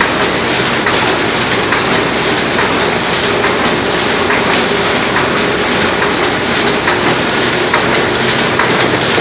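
Oliver 66 semi-automatic offset printing press running steadily: a loud, even machine clatter with repeated clicks and a low hum.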